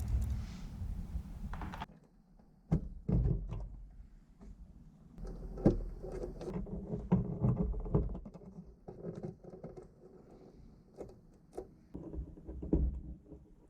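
Scattered clicks, taps and knocks of PC case parts and power-supply cables being handled. A steady hiss runs for about the first two seconds, then cuts off suddenly.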